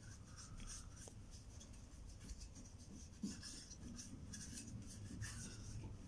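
Faint, irregular rubbing and scraping as a hand scrubs spilled paint off a small car wing mirror, with one light knock about halfway through.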